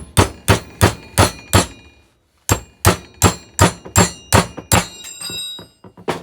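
Hammer blows on steel, about three a second: a run of six, a short pause, then seven more, the later ones leaving a metallic ring. A seized part of a Kurt milling vise is being knocked loose.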